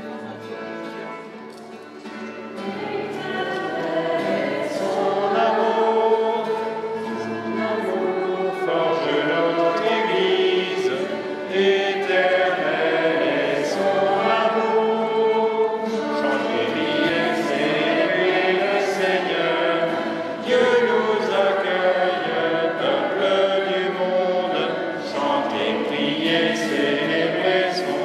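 Church congregation singing a hymn together, accompanied by guitar, violin and piano; the singing grows louder about three seconds in.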